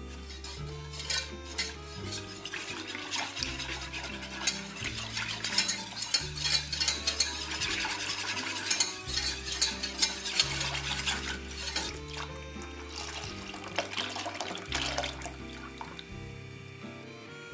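Wire whisk stirring briskly in a stainless steel saucepan, its wires clicking and scraping against the pan in a rapid, uneven patter, busiest in the middle. Milk is being whisked into a butter-and-flour roux to make a white sauce. Soft background music with low sustained notes plays underneath.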